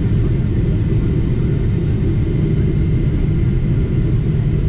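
Steady low rumble inside the cabin of a Boeing 777-300ER with its GE90-115B engines running, with a faint steady high whine.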